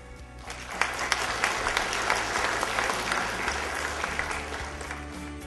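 Audience applauding, building about half a second in and tapering off toward the end, with music coming in underneath near the end.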